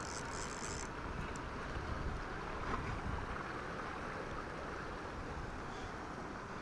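Wind noise on the microphone: a steady low rumble and hiss, with a short high-pitched rasp in the first second.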